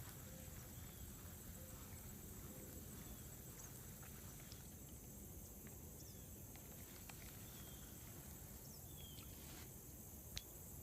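Faint outdoor ambience: a steady high insect drone with a few short, faint bird chirps and scattered faint ticks.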